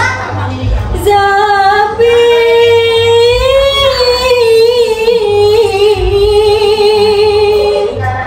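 Women's voices singing unaccompanied, holding one long note for about seven seconds. The note steps up a little about two seconds in and wavers with vibrato in the middle before ending near the end.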